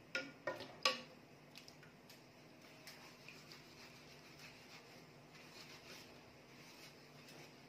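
Washing up by hand at a kitchen sink. A few sharp clinks of dishes and cutlery come in the first second, then faint scrubbing of a knife with a soapy sponge and soft scattered clicks.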